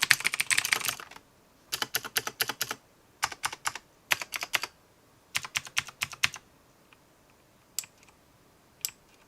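Typing on a clicky mechanical keyboard: a fast run of keystrokes for about the first second, then four short bursts of typing, and a few single key clicks near the end.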